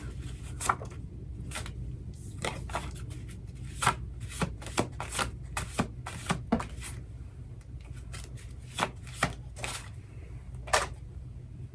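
Oracle cards being shuffled and handled on a table: an irregular run of sharp card slaps and clicks over a low steady hum.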